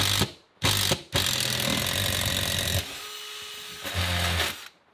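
Cordless drill boring a long bit down through a wooden floor, running in several stop-start bursts, with a quieter stretch of about a second before a last burst that stops shortly before the end.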